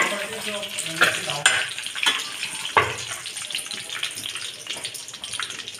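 Hot oil sizzling in a pan after frying rohu fish pieces, with about five sharp clinks and scrapes of a metal spatula against the pan and a steel plate in the first three seconds as the fried pieces are lifted out.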